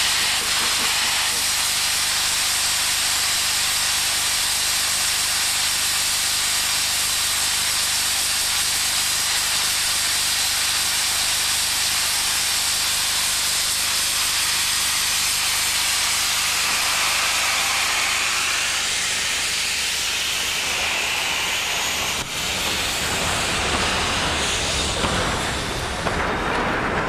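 NSW 36 class steam locomotive 3642 hissing steadily as steam blows out around its driving wheels at rail level. Near the end the hiss fades and a lower, uneven rumble takes over.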